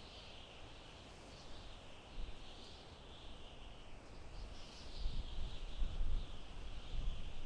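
Soft wind blowing through a forest, with a high hiss that swells and fades every second or so, and low gusts that strengthen about five seconds in.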